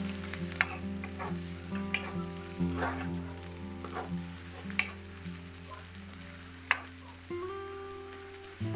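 Sliced onion and torch ginger flower sizzling in hot oil in a wok while being stirred, the metal spoon scraping and knocking against the pan about five times.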